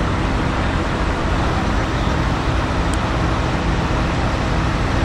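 Ferrari California T's twin-turbo V8 running steadily at low revs as the car creeps forward at walking pace, over a continuous background hum.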